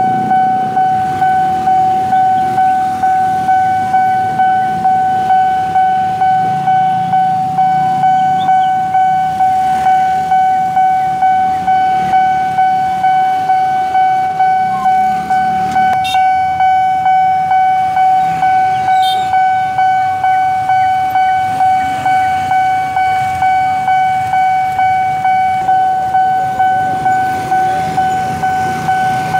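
Railway level-crossing warning bell ringing continuously at about two strikes a second, each strike a single ringing tone that quickly fades: the signal that a train is approaching and the crossing is closing. Motorcycle and minibus engines run underneath.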